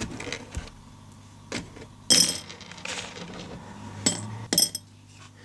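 Small glass beads clinking into a glass jar: a few sharp, ringing clinks, the loudest about two seconds in and another couple near four and a half seconds.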